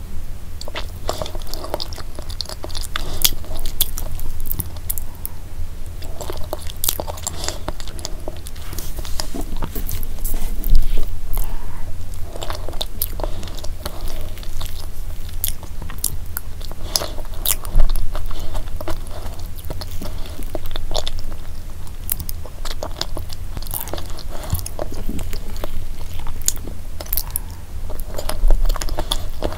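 Close-miked chewing of a soft, creamy layered dessert, full of small wet mouth clicks and smacks, with a few louder bites along the way.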